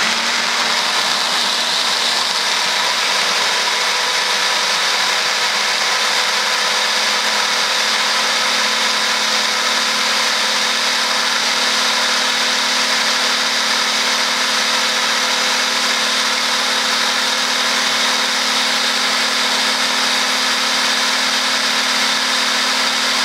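Electric hand blender running on its mini chopper bowl, whizzing buttermilk and blue Stilton into a dip: a steady motor whine that holds one pitch without a break.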